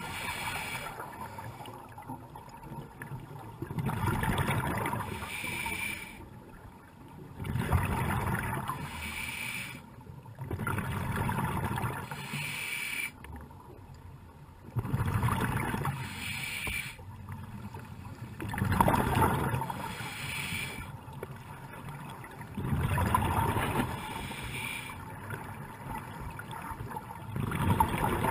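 A scuba diver breathing through a regulator underwater, heard in a regular cycle about every four seconds: a quieter hiss on each inhale, then a louder rush of exhaled bubbles.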